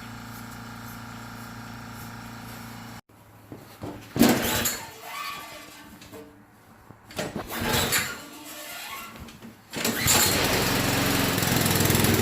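Small lawn mower engine started cold: a few short sputtering attempts, then it catches about ten seconds in and runs steadily and loudly. Before that, a steady low hum cuts off suddenly about three seconds in.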